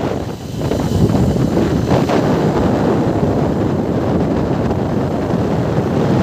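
Wind rushing over the microphone of a moving motorcycle, with engine and road noise under it. The rush dips briefly under a second in, then carries on steadily.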